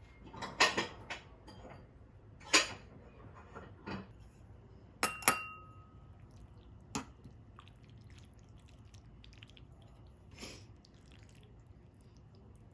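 Dishes and utensils being handled: a few sharp knocks and clatters in the first three seconds, then two clinks about five seconds in, the second ringing briefly. Lighter taps follow.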